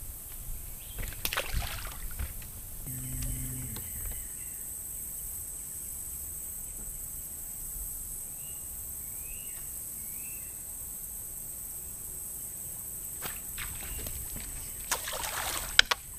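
Outdoor ambience on the water: a steady high insect buzz, a brief low hum about three seconds in, and three short bird chirps in the middle. Near the end comes a cluster of clicks and rustles from fishing tackle as a small bass is hooked and swung out of the water.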